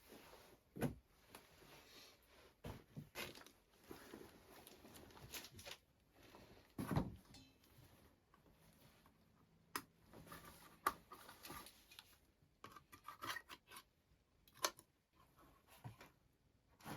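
Scattered clicks, knocks and rustling from small objects being handled, with a few sharper knocks standing out at irregular intervals.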